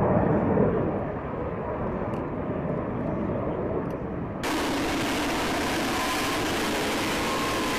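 Lockheed Martin F-35B Lightning II's Pratt & Whitney F135 jet engine, a distant, muffled rumble as the jet flies across. About four and a half seconds in it switches abruptly to a steady, even roar as the F-35B hovers in STOVL mode.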